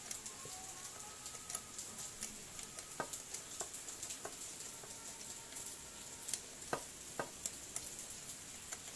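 Light, scattered metallic clicks and ticks as bolts are turned by hand in the aluminium crankcase of a small four-stroke generator engine, over a faint steady hiss. A few sharper clicks come about three seconds in and twice close together about seven seconds in.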